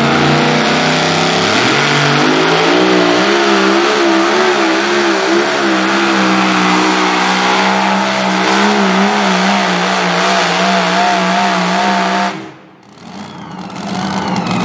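Super modified 2WD pulling truck's supercharged engine at full throttle under load as it pulls the sled. The pitch climbs over the first few seconds, then holds high and wavers. About twelve seconds in, the engine sound cuts out abruptly.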